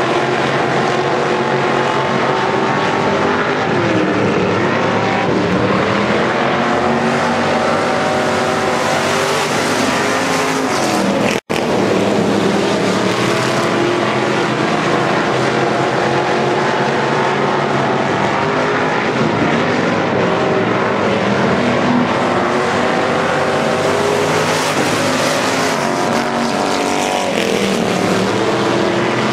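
A pack of dirt-track hobby stock race cars running flat out, several engine notes overlapping and rising and falling as the cars go around the oval. The sound cuts out for an instant about eleven seconds in.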